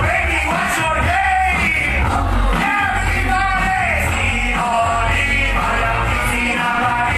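Loud music with a singing voice over a heavy bass line.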